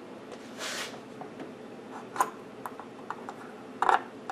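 Clicks and scrapes of an RCA cable plug being handled and pushed onto a preamp's gold-plated input jack. There is a soft rustle about half a second in, a sharp click a little after two seconds and a few small ticks, then the loudest clatter just before the end as the plug goes on, over a steady faint hiss.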